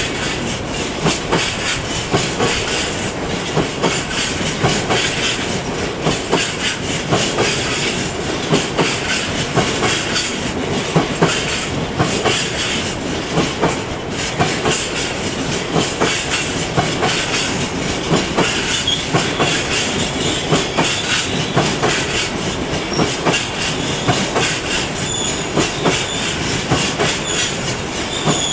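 Long freight train of covered bogie hopper wagons rolling past, its wheels clattering over rail joints and pointwork in a continuous stream of clicks and knocks.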